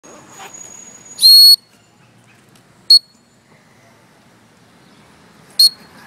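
A whistle blown three times at one steady high pitch: a longer blast about a second in, then two short blasts, one near the middle and one near the end.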